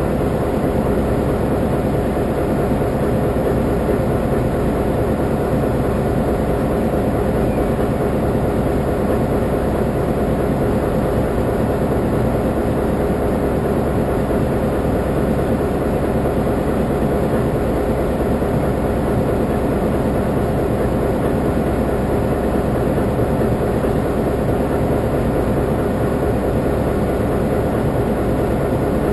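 Taiwan Railways diesel locomotive standing with its diesel engine idling, a steady, unchanging engine drone.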